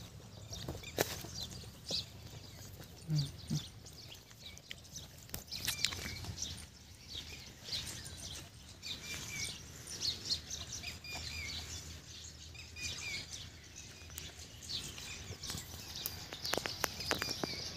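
Small birds chirping here and there in short high calls, with scattered light clicks and rustles and two brief low sounds about three seconds in.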